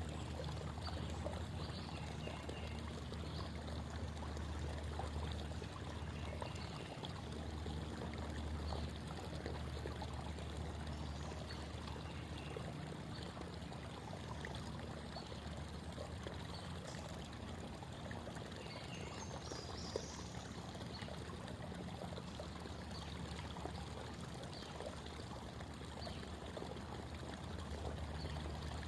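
Creek water babbling and trickling over rocks in a steady, unbroken flow.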